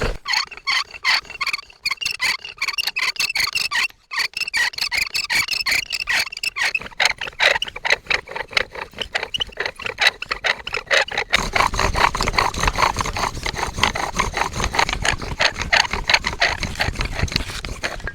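Wood rubbing hard on wood in fast, even back-and-forth strokes, squeaking, as a friction fire set is worked to raise an ember. The strokes pause briefly about 4 s in, and grow fuller and lower from about 11 s.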